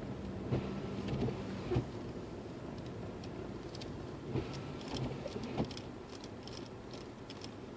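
Lexus IS250's V6 engine running at idle, heard as a steady low hum inside the car, with a few scattered light clicks and knocks.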